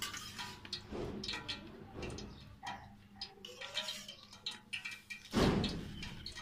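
Hands working breadcrumbs over an egg-dipped potato-chicken donut in a stainless steel bowl: a run of small ticks, scrapes and crumb rustles against the metal, with one louder scuff about five seconds in.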